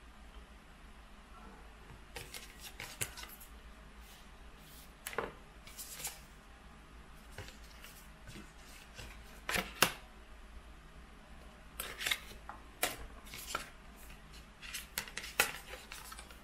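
Stiff oracle cards handled and flipped one by one: irregular clusters of sharp clicks and light taps of card stock, loudest about ten seconds in.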